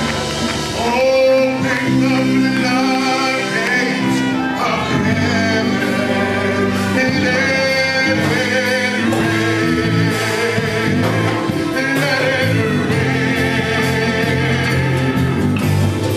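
A live church worship band plays a gospel praise song, with voices singing over sustained chords.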